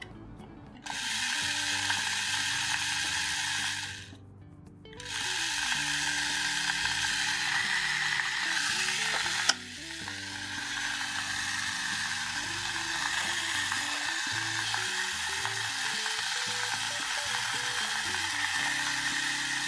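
Hello Kitty toy vacuum cleaner's small motor running with a steady high whirring hiss, switched on about a second in, off for about a second near four seconds, then back on; one sharp click partway through. Soft background music underneath.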